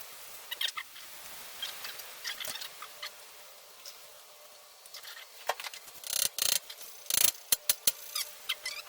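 Irregular mechanical clicking and knocking, sparse at first, then a cluster of louder sharp knocks from about five seconds in.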